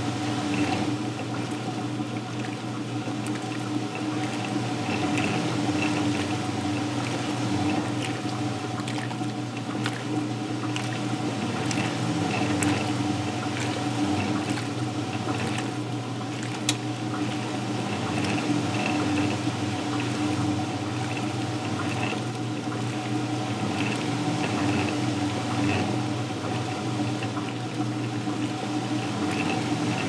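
Vintage Sears Kenmore belt-drive top-load washing machine in its wash agitation: water and a load of work pants churn and slosh in the tub over the steady hum of the motor and drive.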